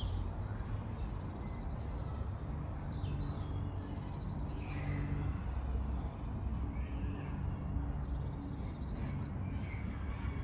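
Scattered short bird calls over a steady low rumble of road traffic, with a vehicle's engine hum holding steady through the middle.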